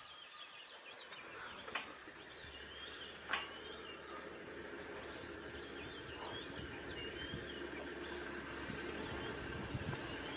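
Quiet bush ambience with small birds chirping repeatedly over a steady low background noise, and a couple of faint knocks.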